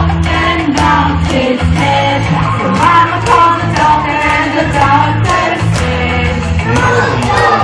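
Children's action song with a steady beat and bass accompaniment, sung by children and adults together.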